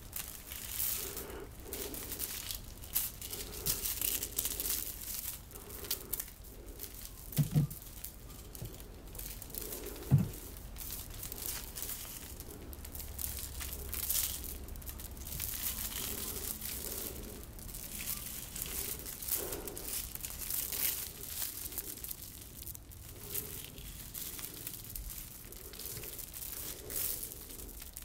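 Bead necklaces and metal chains being handled and shifted between the hands: a continual rustling, clicking jingle of many small beads and links. Two short low thumps stand out, about seven and ten seconds in.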